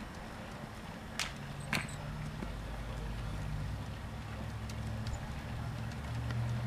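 Diesel train running: a steady low rumble and engine hum that grows louder near the end, with two sharp clicks a bit over a second in.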